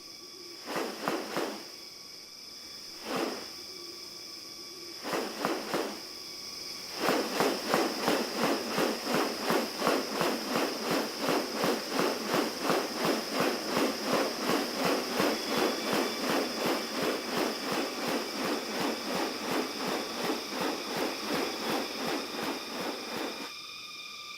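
Rainforest ambience: a steady high insect drone with a few short rustling sounds, then from about seven seconds a fast, even series of rasping pulses, about three a second, from a calling animal.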